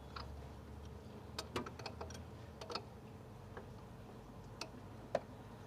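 Scattered light clicks and taps of tools and metal parts, about half a dozen at uneven intervals, as a 4D56 diesel engine is turned over by hand during timing-gear work, over a faint low hum.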